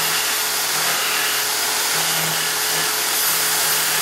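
Power drill motor running steadily, driving a wooden spindle on a homemade mini lathe, while a hand chisel scrapes the turning wood.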